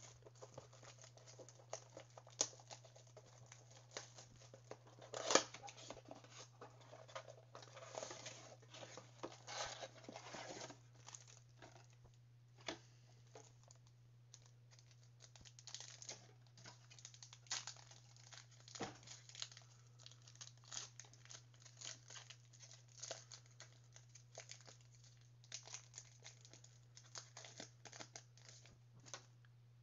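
Plastic wrapping and card packs of a Panini Mosaic basketball blaster box being torn open and crinkled: irregular crackles and tears, the loudest about five seconds in. A steady low hum runs underneath.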